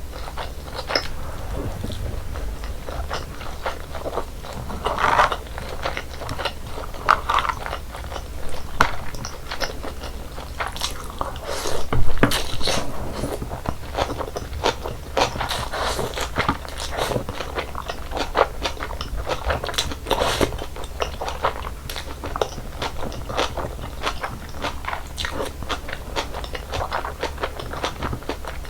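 Close-miked eating sounds: a person chewing and crunching, with many irregular crisp bites. The loudest crunch comes about twelve seconds in.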